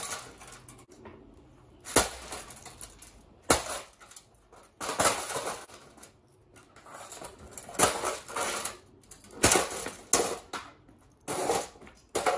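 Consumer electronics being smashed: repeated hard blows about every one to two seconds, with cracking and crunching of the casing between some of them.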